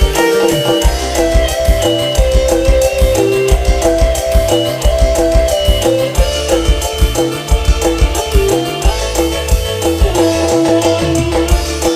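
Background music with a steady drum beat and melodic instruments.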